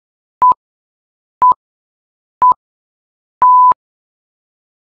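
Electronic workout-timer countdown beeps: three short, identical beeps a second apart, then a longer beep of the same pitch about three and a half seconds in, the cue that the next exercise interval starts.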